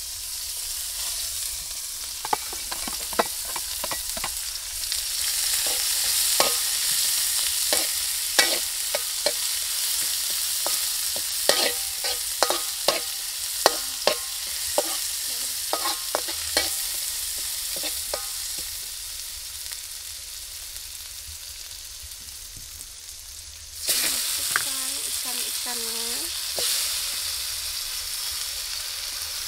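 Fish and spices frying in hot oil in a pan, sizzling steadily, while a spatula scrapes and knocks against the pan again and again through the first half. About three-quarters of the way through, the sizzle suddenly jumps louder.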